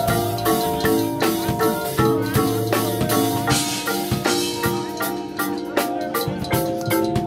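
Percussion front ensemble playing a rhythmic passage on marimbas and other mallet keyboards, with drum hits underneath; quicker, evenly spaced sharp strikes join in over the last couple of seconds.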